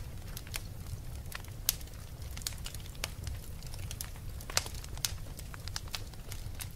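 Campfire crackling: irregular sharp pops and snaps over a low steady rumble.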